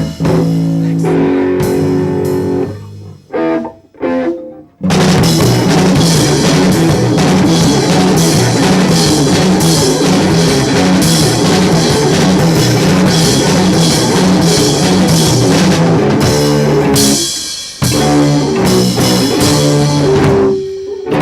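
Live rock trio of electric guitar, bass guitar and drum kit playing an instrumental passage. The band stops and starts twice in the first five seconds, then comes in together at full volume, with another short break about three quarters of the way through.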